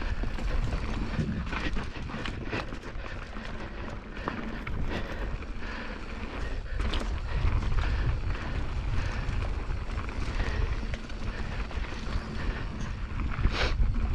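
Wind buffeting the microphone on a fast mountain-bike descent, with the bike rattling and knocking over rough trail throughout and a sharper knock near the end.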